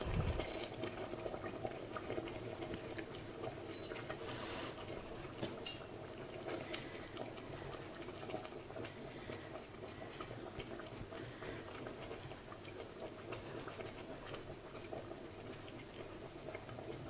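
A metal utensil stirring a thick flour-and-butter sauce with melting herb cheese in a stainless steel pot, making faint, irregular small clicks and scrapes against the pot while the sauce quietly bubbles.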